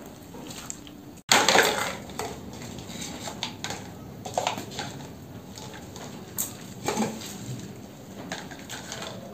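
Light plastic cups clattering and scraping on a tile floor as they are gathered up by hand. There is a burst of clatter about a second in, then scattered light clicks and knocks.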